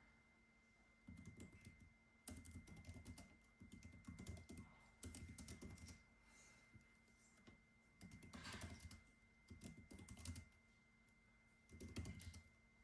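Typing on a computer keyboard: quick runs of key clicks in spurts of a second or two, with short pauses between. The sound is quiet, with a faint steady high tone underneath.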